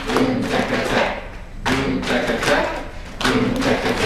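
A group of voices, children with an adult, chanting together in three short rhythmic phrases about a second and a half apart, with hand strikes in time.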